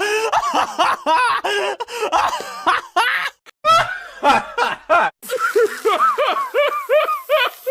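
A string of high-pitched cartoon character laughs, quick rising-and-falling "ha-ha" syllables, one laugh clip after another with abrupt cuts between them.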